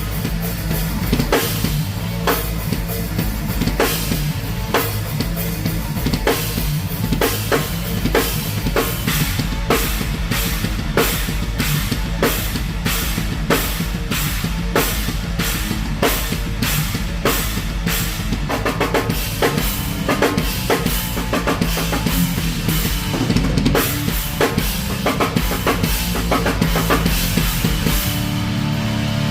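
Heavy rock band playing, with a drum kit to the fore: rapid, even kick, snare and cymbal hits over a steady low bass line. Near the end the drumming stops and a sustained guitar chord rings on.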